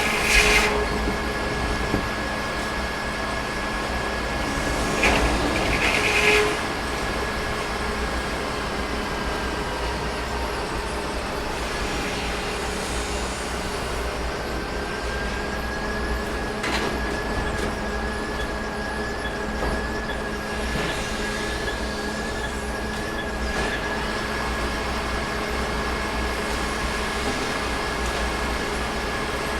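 Sawmill running steadily: a low engine drone with a high whine over it that rises a little about halfway through. There are brief louder bursts at the start and around five to six seconds in.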